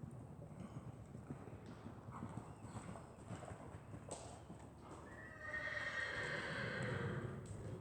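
A horse whinnies once, a long call of about two seconds starting about five seconds in and falling slightly in pitch. Before it come scattered faint hoof clicks.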